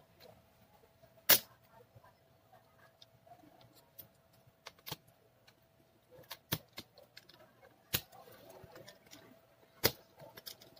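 Sharp plastic clicks and snaps as a laptop keyboard is pried off the plastic locks of its palmrest case. The loudest snap comes about a second in, and several more follow one by one through the rest.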